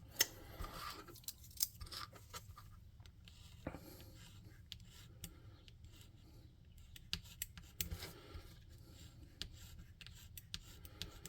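Faint, irregular scraping, scratching and small clicks of hand crafting work on a small plastic figure, prepping its surface to take glue and paint.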